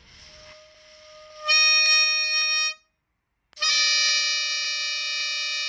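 A reedy, harmonica-like sound: a breathy hiss with a faint tone, then two long steady high notes, the second longer than the first.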